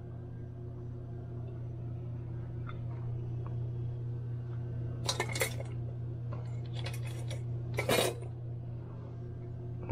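Metal mixer parts clinking and rattling as they are handled, in several short bursts from about halfway through, the loudest near the end. A steady low hum runs underneath.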